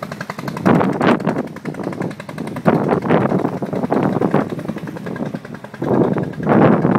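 Engine of a wooden river cargo boat chugging steadily as it passes, a fast even putter. Loud, irregular gusts of wind buffet the microphone over it.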